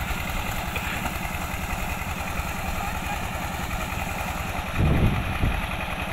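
Small single-cylinder diesel engine running steadily at a fast, even beat while driving an irrigation water pump, with water gushing from the outlet pipe into a concrete tank. The sound gets briefly louder about five seconds in.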